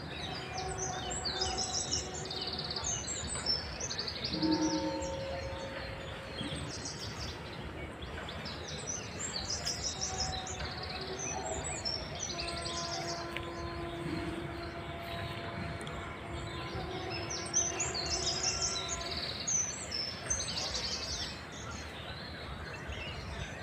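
Several birds chirping and trilling repeatedly in short high-pitched calls over a steady outdoor background noise.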